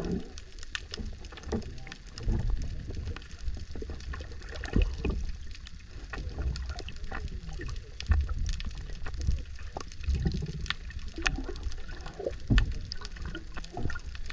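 Underwater sound picked up by a submerged camera: a muffled low rumble of moving water with scattered sharp clicks throughout.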